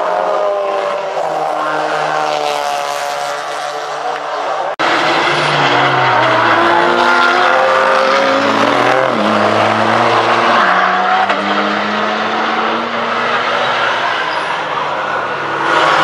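Several race car engines passing at speed, their notes gliding down as they go by. About five seconds in there is an abrupt cut to louder race cars working through a corner, their engine notes rising and falling as they brake and accelerate.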